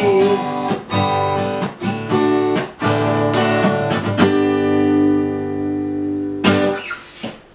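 Acoustic guitar strumming the song's closing chords: a run of strokes, then a chord left ringing for about two seconds, and one last strum that dies away near the end.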